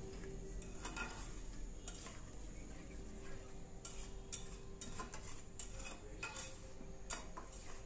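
Metal spatula stirring a spice paste with milk in a metal pan, scraping and clicking against the pan about once a second. This is the masala being fried down (kashano) before the chicken goes in.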